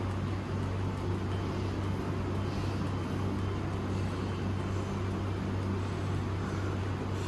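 A steady low machine hum with a faint even hiss over it, unchanging throughout.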